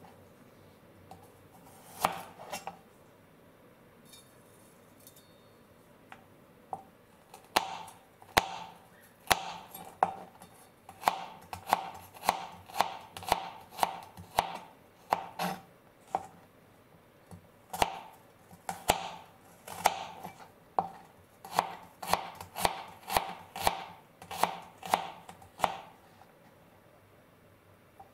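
Kitchen knife chopping garlic cloves on a plastic cutting board: a single knock about two seconds in, then a long run of sharp knife-on-board knocks at roughly one and a half a second, stopping shortly before the end.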